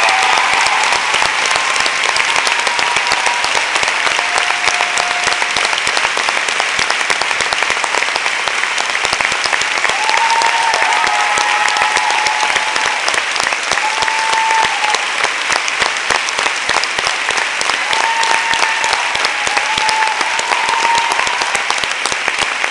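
Theatre audience applauding steadily, with a few brief voices calling out above the clapping around the middle and near the end.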